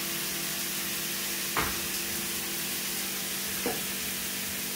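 Beef steak frying in a pan on a gas hob, a steady sizzle over a low steady hum. Two short knocks about one and a half seconds and three and a half seconds in, as things are moved in a kitchen cabinet.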